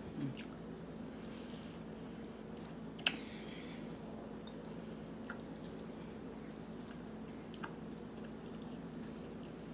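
Quiet eating sounds: soft chewing and a metal fork clicking against a ceramic bowl a few times, the sharpest click about three seconds in, over a steady low hum.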